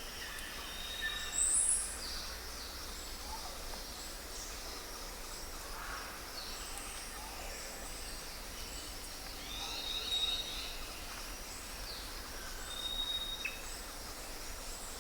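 Several wild birds chirping and calling over a steady background hiss of outdoor ambience: short thin whistles and quick high chirps here and there, the loudest a sharp rising chirp about a second and a half in.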